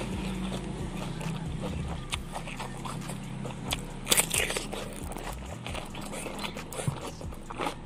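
Close-up eating sounds: wet chewing, then a loud crisp crunch about four seconds in as a bite is taken from a whole raw cucumber, followed by crunchy chewing.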